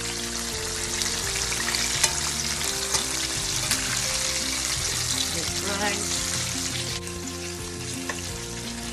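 Chicken wings frying in hot oil: a steady sizzle with scattered sharp pops and clicks.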